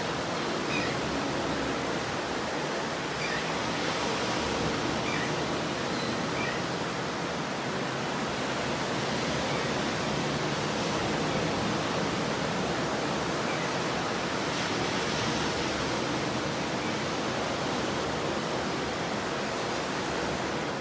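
Ocean surf: a continuous, steady wash of breaking waves on a beach.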